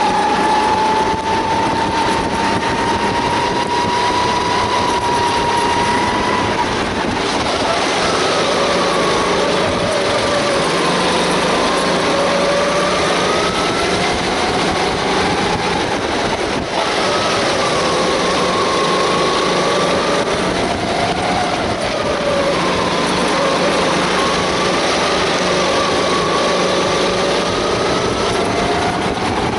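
Sodi rental kart engine running hard, heard on board: its pitch climbs slowly for the first six seconds, then falls and rises again and again as the kart slows for corners and accelerates out of them.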